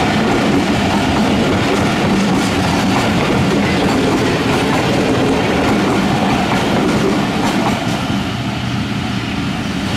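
Tezgam Express passenger coaches running past at speed close by, their wheels rumbling and clattering on the rails. It eases off near the end as the last coach goes by.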